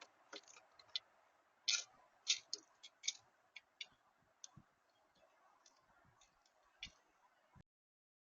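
A series of irregular sharp clicks and taps, about two dozen over some seven seconds, over a faint steady hiss; the sound cuts off suddenly near the end.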